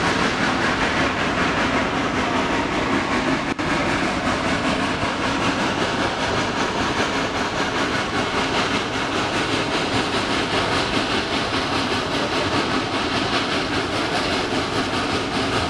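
Steady running noise of a steam excursion train heard from aboard an open-sided passenger car: wheels clattering on the rails as a geared steam locomotive works the train up the grade. The sound drops out briefly about three and a half seconds in.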